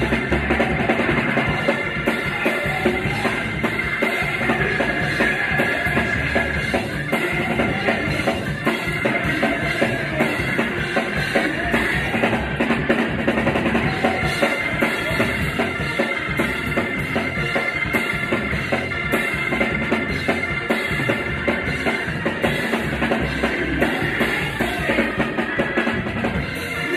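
Live church gospel band playing, the drum kit out front with bass drum and snare keeping a dense, steady beat over sustained held notes.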